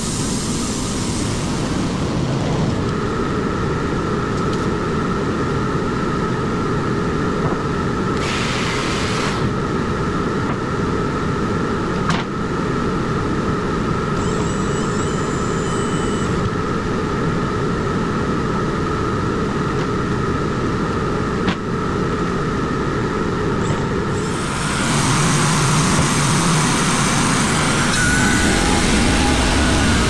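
Wood-Mizer LT35 band sawmill running, its band blade cutting slowly through hard, dry chestnut oak with a steady whine over the engine. About three-quarters of the way through, the sound turns louder and hissier.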